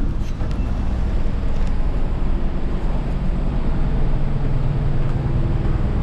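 A car ferry's engines running with a steady low hum, under heavy wind rumble on the microphone.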